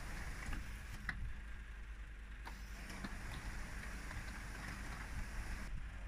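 Paving machinery's engine running steadily with a low hum, with a few short clicks and scrapes over it.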